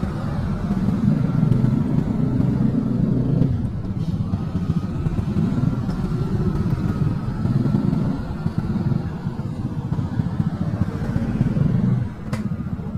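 Small motor scooter engine running while riding through a narrow street among other motorcycles, its note rising and easing with the throttle. It drops off near the end as the scooter slows.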